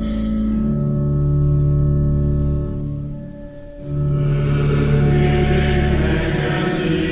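Church pipe organ playing sustained chords as the introduction to a hymn, breaking off briefly about three and a half seconds in. Then voices come in singing the hymn over the organ.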